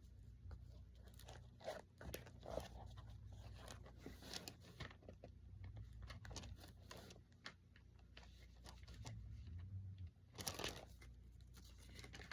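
Faint rustling and crinkling of thin paper pages being leafed through, a Bible being searched for a passage, with scattered small clicks and handling noises.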